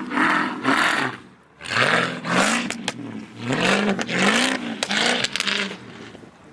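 Car engine revved in repeated short bursts, its pitch rising and falling with each one, over a hiss of tyres spinning in snow.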